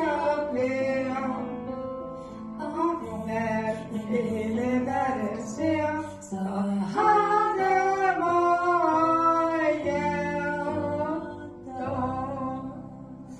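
A young woman singing a song solo over a steady instrumental accompaniment; her voice stops shortly before the end.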